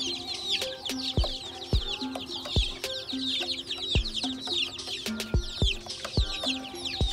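A crowd of young chicks peeping without pause, many quick high cheeps that fall in pitch and overlap. Underneath is background music with held low notes and a thumping beat.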